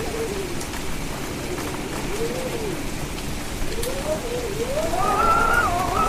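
Steady heavy rain with wind howling over it in rising and falling tones, the howls climbing higher and louder toward the end.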